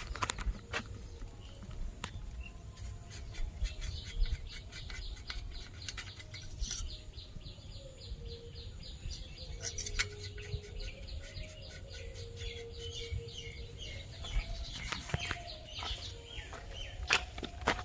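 Birds chirping in quick, repeated short notes over a steady low rumble.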